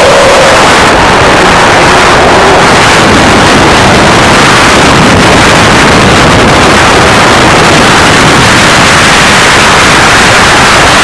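Loud, steady cabin noise of a small helicopter in flight: engine and rotor noise mixed with the rush of air.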